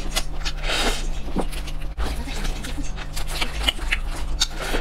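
Close-miked chewing of fried chicken: wet smacking, crackling and clicking mouth sounds, with a denser crunching patch just before a second in.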